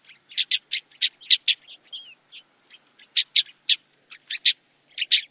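A bird giving a rapid series of short, sharp call notes in uneven bursts of several a second, with a few thinner slurred notes in between.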